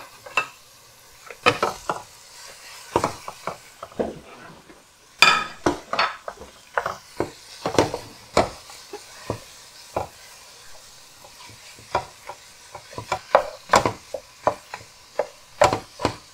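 Wooden spoon scraping and knocking against the pot in irregular strokes as raw ground beef is broken up and stirred into sautéing chopped onions, with a faint sizzle of frying underneath.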